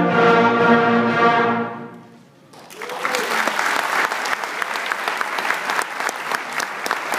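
School concert band holding its final chord, which dies away about two seconds in. A moment later the audience breaks into steady applause.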